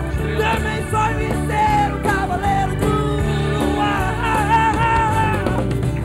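Live acoustic rock band playing a song: a male lead voice singing over strummed acoustic guitar, acoustic bass guitar, a drum kit and keyboards.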